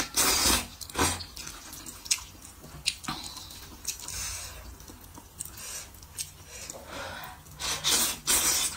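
Slurping wide noodles in soup: loud wet slurps at the start and again near the end, with quieter chewing and short slurps between.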